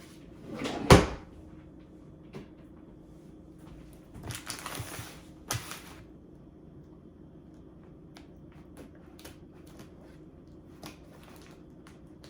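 A sharp knock about a second in, then short rustles of plastic packaging and scattered small clicks as scissors are worked at a sealed package of cheese that won't open.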